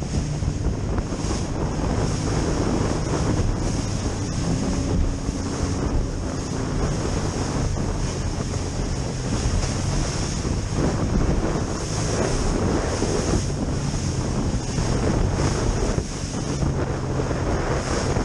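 Aluminum boat running through choppy water: spray and waves slapping against the hull, heavy wind buffeting the microphone, and the steady drone of the outboard motor underneath.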